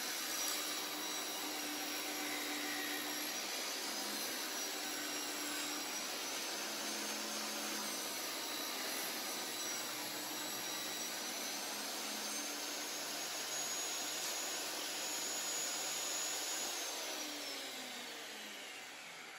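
Benchtop table saw running with a high motor whine while ripping a wooden board lengthwise. About 17 seconds in the motor is shut off and the whine falls in pitch and fades as the blade spins down.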